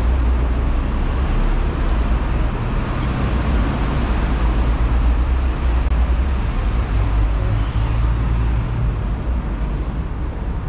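Hong Kong double-decker tram running along the street: a steady low rumble with road-traffic noise around it and a few faint ticks.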